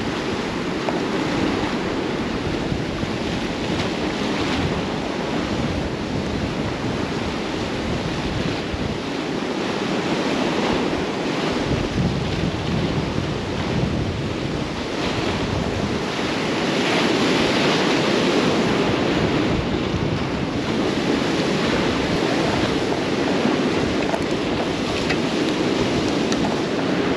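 Choppy surf breaking and washing against a granite rock groin, a steady rush of waves with wind buffeting the microphone; a little louder past the middle.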